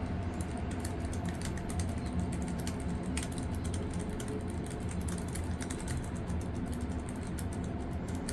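Typing on a Keychron K3 low-profile mechanical keyboard: a fast, continuous run of light key clicks, typing of the kind shown off as quiet.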